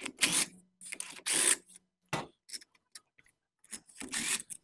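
Cordless impact driver backing out the Torx screws of a chainsaw's muffler cover in several short runs, with a steady motor hum through the first couple of seconds.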